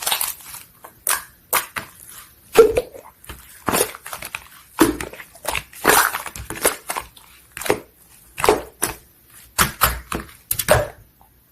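Slime being squeezed and poked by hand, giving irregular wet squelches and air-bubble pops about twice a second, which stop shortly before the end.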